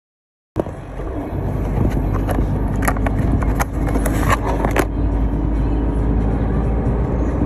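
A vehicle driving along a road: a steady low rumble of motor, tyres and wind that starts suddenly about half a second in. A run of sharp clicks or rattles comes between about two and five seconds in.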